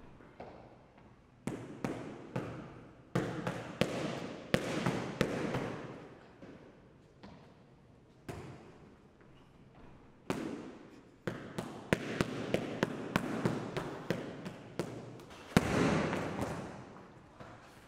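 Boxing gloves punching focus mitts: sharp smacks in quick clusters of several at a time, with pauses between. The smacks ring in a large hard-walled room. The loudest blow comes near the end.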